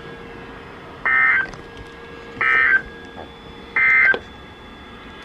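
NOAA Weather Radio SAME end-of-message code: three short bursts of warbling digital data tones, about a second and a third apart, signalling the end of the alert broadcast. A faint steady hum runs underneath.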